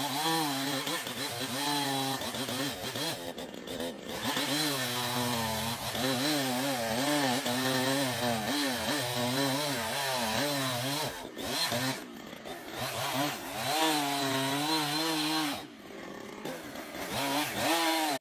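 Two-stroke chainsaw running and cutting wood, its engine pitch rising and falling as it loads up in the cut, with brief dips in level a few times.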